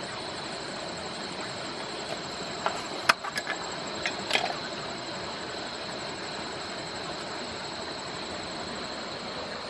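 Steady rush of a forest stream under a continuous high drone of night insects such as crickets. Between about two and a half and four and a half seconds in, a handful of sharp clicks and knocks as a hand grabs for a frog among the wet stones.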